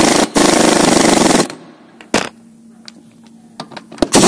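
Impact wrench hammering on a 13 mm wheel bolt, loosening it: a short burst, then a continuous run of about a second that stops abruptly. A single knock about two seconds in, and another brief burst of the wrench near the end.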